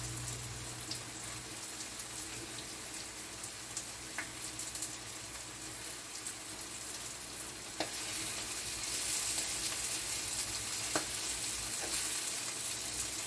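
Omena (Lake Victoria sardines) sizzling as they fry in a pan, a steady hiss that gets a little louder about eight seconds in, with a few faint ticks.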